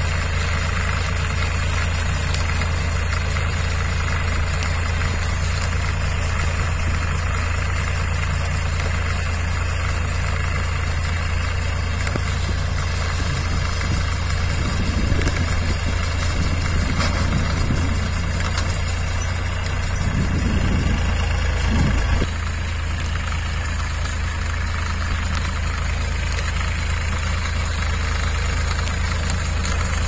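Massey Ferguson 7250 DI tractor's diesel engine running steadily as it pulls and drives a round straw baler through paddy straw. The engine note rises and falls a few times past the middle, then the sound changes abruptly a little after twenty seconds in.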